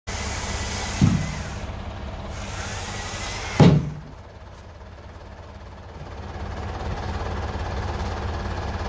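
Chainsaw running at full throttle, cutting through a log over a mini excavator's steady diesel idle. A thump comes about a second in, and a heavier one near 3.6 s as the cut-off log section drops into a steel loader bucket. After that the saw stops cutting, and the diesel hum continues alone.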